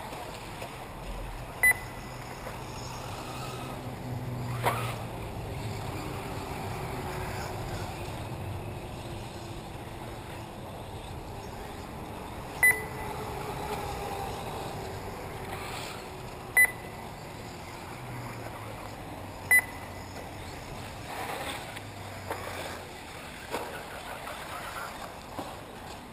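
Four short, sharp electronic beeps of one high pitch, several seconds apart, typical of the race's lap-timing system as cars cross the line. Under them runs a steady outdoor haze with the faint rising and falling whine of 1/8-scale electric RC buggies on the dirt track.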